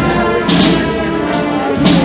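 Brass band playing a slow processional march, with sustained chords and two heavy drum beats, one about half a second in and one near the end.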